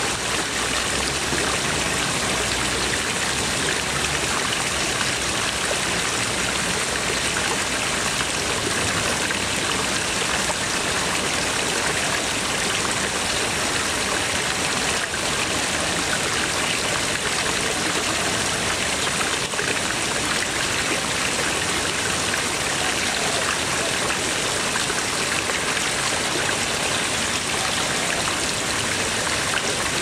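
Water jets pouring from stone dragon-head spouts and splashing steadily into a pond, a continuous even splashing.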